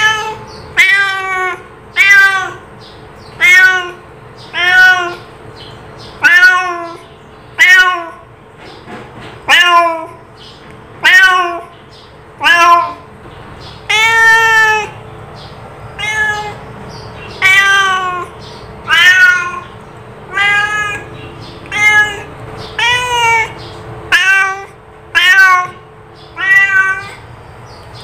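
A domestic cat meowing over and over, about one meow every second and a bit. Each call rises and then falls in pitch, and a few in the middle are drawn out longer.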